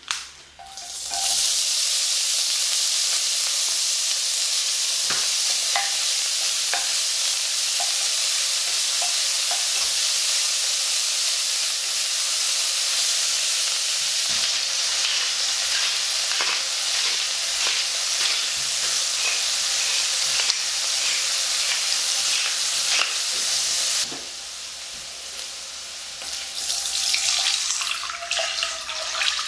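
Ground meat sizzling loudly as it fries in hot sesame oil in a nonstick pot, the sizzle starting suddenly as the meat goes in, with scattered clicks of a utensil stirring it. Near the end the sizzle drops away and soy milk is poured in.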